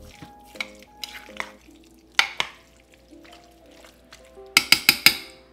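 Metal spoon stirring thick baked beans and brown sugar in a slow-cooker crock: soft wet scrapes and light clinks, then a quick run of sharp clinks near the end.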